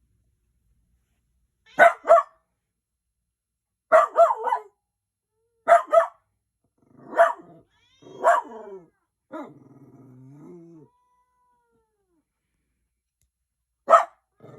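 Dog barking in short, sharp barks, single or in quick twos and threes, every second or two, with a drawn-out lower growl about halfway and one more bark near the end.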